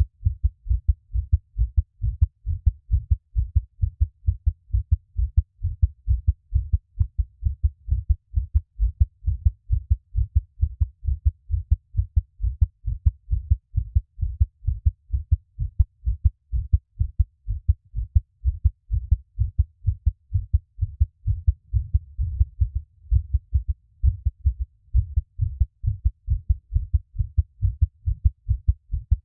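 A person's heartbeat picked up close to the chest, a steady run of low, soft lub-dub thumps in an even rhythm.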